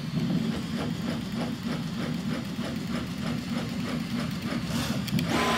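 3D printer printing, its stepper motors driving the print head and bed through quick, evenly repeating moves in a steady mechanical whir, with a brief hiss near the end.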